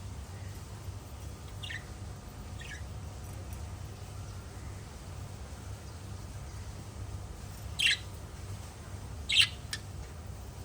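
Small pet parrots chirping in short calls: two faint downward chirps about two and three seconds in, then two louder, sharp calls near the end, over a steady low hum.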